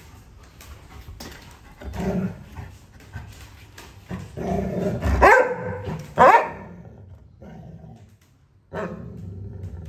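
Dog growling low, then two loud, sharp barks about a second apart, each rising in pitch, with more low grumbling near the end.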